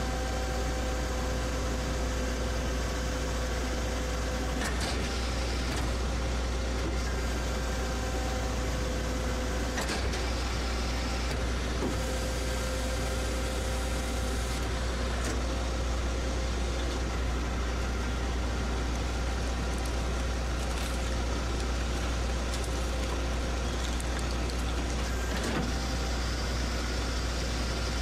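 Oberg oil filter and scrap metal shear baler running with a steady low hum and a couple of steady tones. A few knocks come about five and ten seconds in and again near the end.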